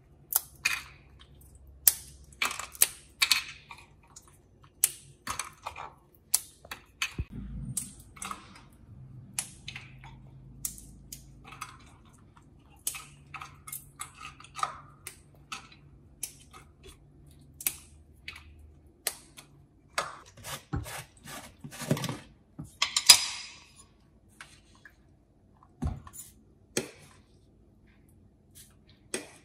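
Walnut pieces being broken up by hand and dropped into a ceramic bowl: light clicks and taps at irregular intervals, with a brief dry rushing rustle about three-quarters of the way through.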